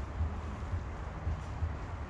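Cat purring low and steadily while being stroked on the head.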